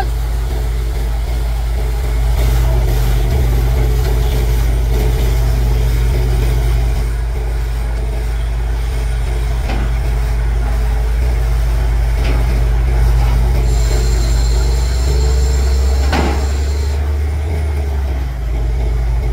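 Borewell drilling rig's engine and air compressor running steadily, a loud low drone, with a single sharp knock about sixteen seconds in.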